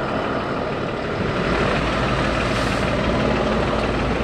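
Sewer-cleaning tank truck running: steady heavy engine and pump noise, which grows louder with a deeper rumble about a second and a half in.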